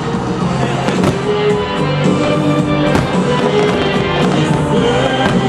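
Loud music with sustained held notes, and fireworks bursting over it in several sharp bangs.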